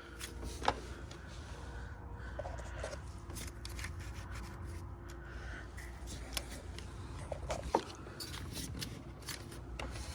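Hand work in an engine bay: scattered small clicks and taps of parts and tools being handled, with two sharper clicks, one under a second in and one near the end.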